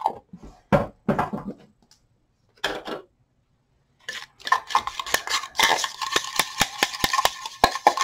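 Metal palette knife stirring and scraping paint mixed with glass beads in a plastic tub, the beads giving it a gritty, clicking texture. A few short scrapes in the first three seconds, then from about four seconds in a continuous busy scraping with quick clicks and a thin squeak running through it.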